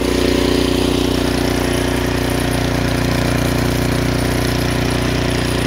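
Craftsman two-stage snowblower's gasoline engine running steadily.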